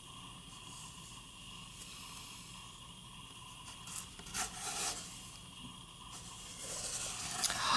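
Quiet rubbing and scraping of a hand on the stiff cardboard pages of a board book as a page is turned, with a few short rustles about four seconds in and louder scraping near the end.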